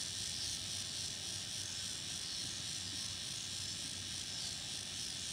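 Steady, high-pitched chorus of cicadas and other insects, continuous without a break, over a low steady hum.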